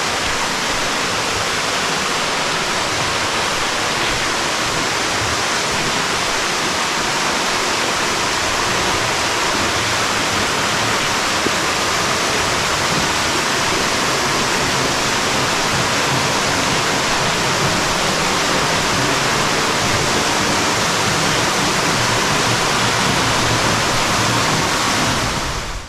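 A waterfall: a steady, loud rush of falling water, even and unbroken, that starts and stops abruptly.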